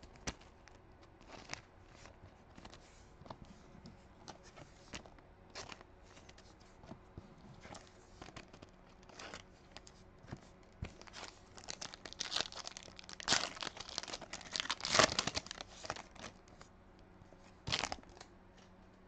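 Hands crinkling and tearing the plastic wrapper of a 2020 Donruss Optic baseball card pack, and cards being slid and flicked through, in short scattered crackles. The crinkling is loudest and busiest about two-thirds of the way in.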